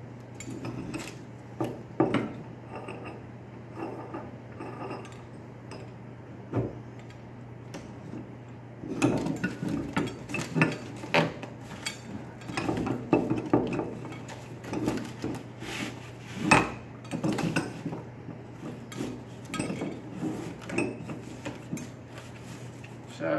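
Wooden knocks, clunks and paper-and-cardboard scuffing as a stack of plywood, cardboard and drying paper is slid into a wooden plant press and squared up between its threaded rods. The knocks are sparse at first and come thick and fast from about nine seconds in, over a steady low hum.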